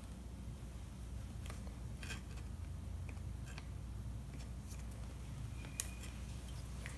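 Faint light clicks and handling noises of small parts being fitted by hand on an RC truck's chassis, with one sharper click near the end, over a low steady hum.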